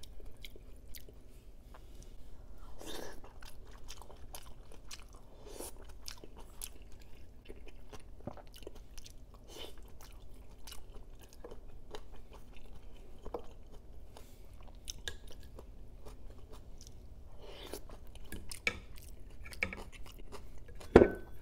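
Close-up chewing of silken tofu in spiced sauce, with many small clicks and soft mouth noises throughout. A single sharp knock sounds near the end.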